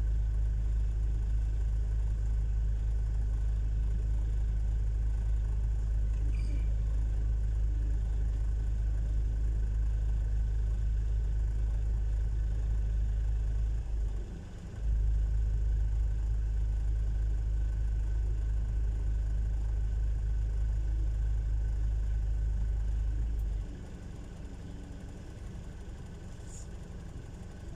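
Steady low rumble of an Airbus A320-family airliner's jet engines at taxi power, heard from a distance. The rumble dips briefly about halfway through and drops to a lower level near the end.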